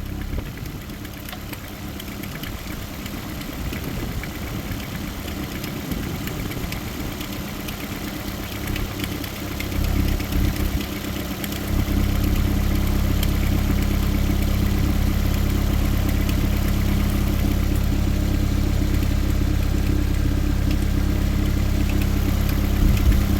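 Toyota car engine running roughly while being fed airsoft BBs through its intake. It runs unevenly at first, surges louder about ten seconds in, and from about twelve seconds runs steadier and louder.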